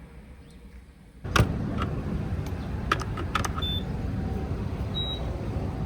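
Turbocharged Nissan 350Z's V6 engine starting abruptly about a second in and then idling steadily, with a few sharp clicks and a jingle of keys.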